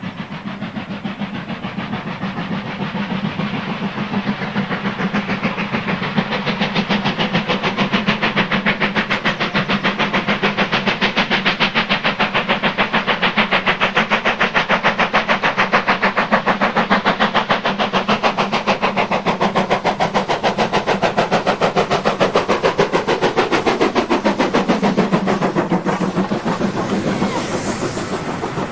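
Steam locomotive working a train with quick, even exhaust beats. It grows louder as it approaches and passes, with a drop in pitch as it goes by, followed by hissing steam and the clatter of the carriages on the rails.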